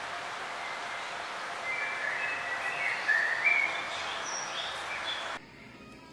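Birds chirping over a steady outdoor background hiss; the sound cuts off abruptly near the end.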